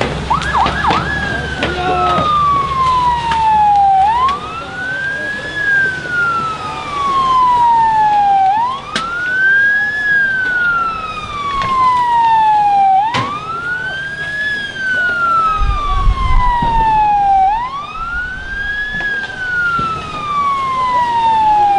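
Police siren in a slow wail, each cycle sweeping up quickly and then falling slowly, repeating about every four and a half seconds over a crowd murmur. Two sharp knocks cut in about 9 and 13 seconds in.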